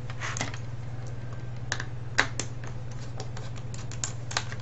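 Irregular light clicks and taps of the hard plastic housing and parts of a cordless home phone being handled and pulled apart, the sharpest about two seconds in, over a steady low hum.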